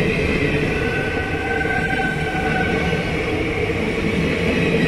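Indian Railways passenger coaches rolling past at speed, a steady rumble of wheels on rail. A thin whine sits over it for about two seconds in the middle.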